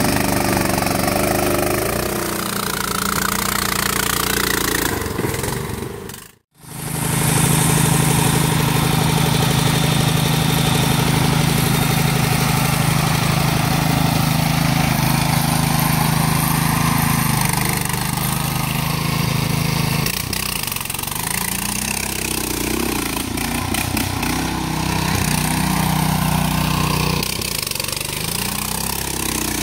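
Riding lawn tractor's small engine running under load off-road, its pitch and level shifting with the throttle. The sound drops out briefly about six seconds in where two clips are joined.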